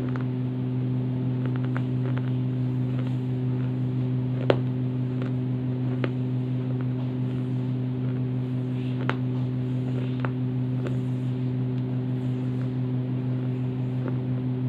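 A steady low hum with a few sharp mouth clicks close to the microphone, the loudest about four and a half seconds in.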